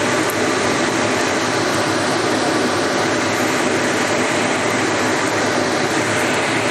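Steady rushing noise of a gas burner heating a wok of water at the boil, unchanging throughout.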